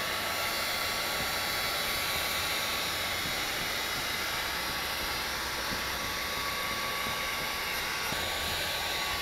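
Handheld electric heat gun running steadily: fan and hot-air hiss with a faint steady whine. It is blowing onto window tint film to heat-set it across the top edge of the glass.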